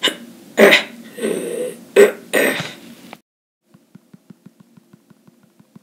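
A person's voice making short, loud mouth-made sound effects, about five bursts over three seconds, then faint regular ticking at about four a second.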